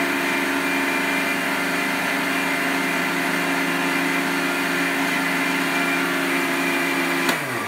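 Electric mixer-grinder running steadily, its small jar grinding dry semolina into powder. It is switched off near the end, and the motor's whine falls away as it spins down.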